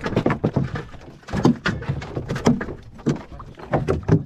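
Irregular knocks and slaps of water against the hull of a small outrigger fishing boat rocking at sea, coming in quick uneven clusters.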